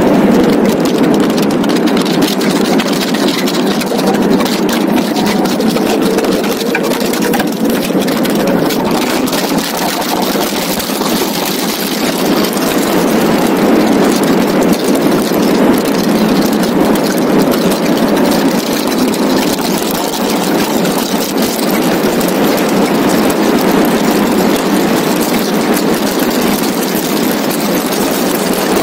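Donkervoort D8 GTO RS's turbocharged five-cylinder engine running hard at track speed, heard from its open cockpit under heavy wind rush across the microphone. The engine note climbs briefly near the start.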